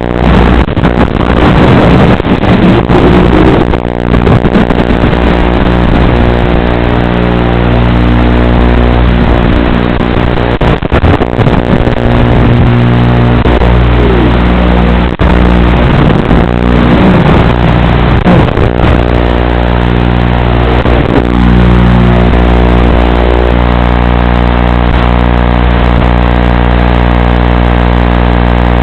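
FPV racing quadcopter's motors buzzing loudly on the craft's onboard audio feed, a dense droning hum whose pitch swoops up and down several times with the throttle. Over the last several seconds the hum holds steady.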